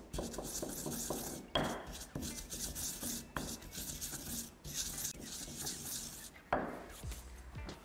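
Stone pestle grinding and pounding garlic, chillies and spices in a stone mortar: a continuous gritty scraping with many small knocks, and a louder knock of stone on stone twice, about a second and a half in and near the end.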